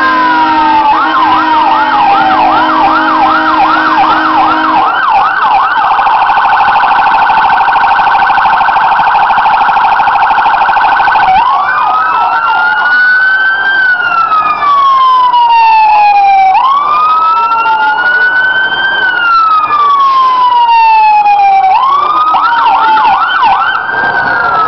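Several emergency-vehicle sirens sound at once. First comes a fast yelp over a steady low tone that stops about five seconds in, then a rapid warble. From about eleven seconds on there are slow wails that rise quickly and fall away over a couple of seconds, again and again, overlapped by other sirens.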